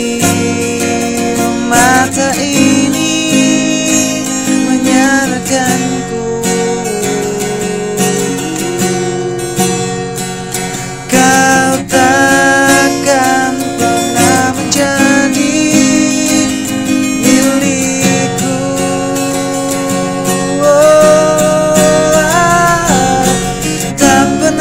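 Acoustic guitar strumming chords, with a voice singing a melody over it.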